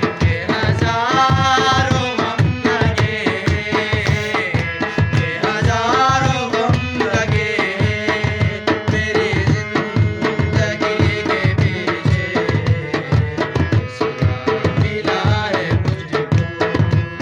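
Ghazal music interlude: tabla playing a brisk, steady rhythm under a melodic line that wavers and bends in pitch a couple of times.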